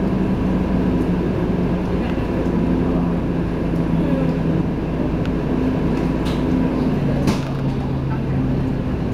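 Scania K230UB bus's five-cylinder diesel engine running under way, heard from inside the passenger cabin: a steady drone that drops to a lower pitch about seven seconds in.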